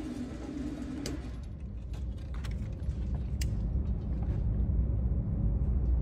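Low steady rumble growing louder, with a few light clicks and taps as an AR pistol is picked up and shouldered.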